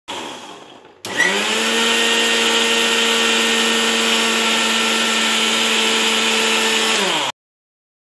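Preethi Crown mixer grinder's motor starting about a second in and running at a steady high whine for about six seconds, blending egg and oil into mayonnaise, then cutting off abruptly.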